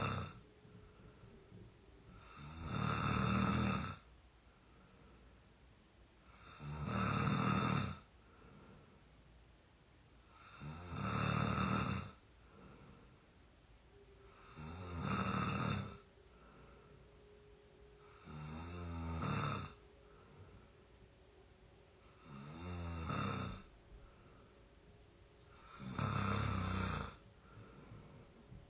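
A 22-year-old snoring in exhausted sleep: seven loud snores, one about every four seconds, with much quieter breathing between them.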